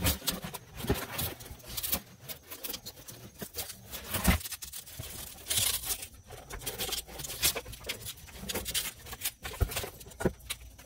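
Cracked glass being chipped and pried out of a Jeep Grand Cherokee ZJ side-mirror housing with a screwdriver: irregular crackling, scraping and clicking of breaking glass against the housing.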